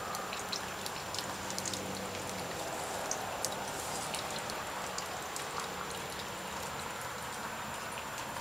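Steady running, splashing water with many small crackling ticks.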